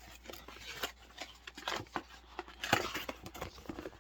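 Small clicks, taps and rustles of gift packaging being handled and opened by hand, irregular and uneven, busiest near the end.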